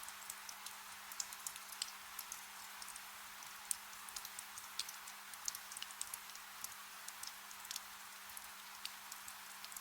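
Soft rain: a steady hiss with frequent, irregular sharp drip ticks, and a faint steady low hum underneath.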